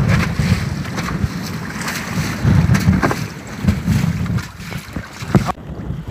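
Wind buffeting the microphone over open sea, with waves washing against a jangada (wooden sailing raft) and a few sharp knocks. The wind noise eases off abruptly near the end.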